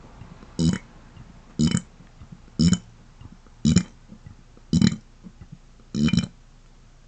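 A person burping deliberately in a run of short belches, six in all, about one a second.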